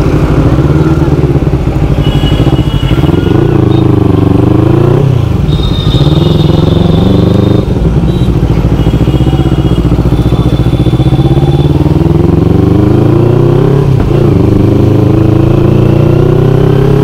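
Kawasaki Ninja 300's parallel-twin engine under way, its note climbing in pitch and then dropping again several times as the bike pulls through the gears.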